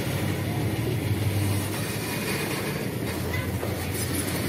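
Loaded freight hopper wagons rolling slowly past on the track, a steady noise of wheels on rail.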